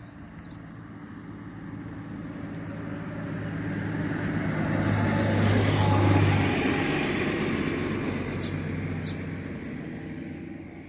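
A motor vehicle driving past: its engine hum and tyre noise build up, peak about six seconds in, then fade away.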